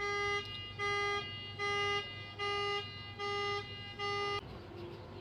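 Car alarm sounding through the car's horn: six even horn blasts, about one every 0.8 seconds, then it stops.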